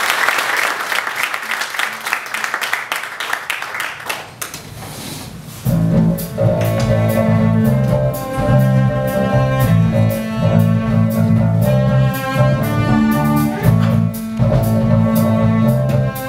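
Audience clapping dies away. About six seconds in, a small band starts the song's introduction: a cello, keyboard, acoustic guitar and drum kit play held low notes over a steady light beat.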